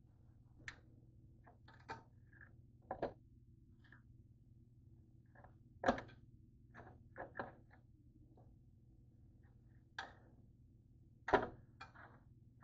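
Scattered light clicks and knocks, the two loudest about six seconds in and near the end, over a faint steady low hum.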